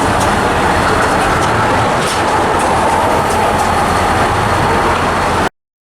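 Steady noise of a train. It cuts off abruptly about five and a half seconds in.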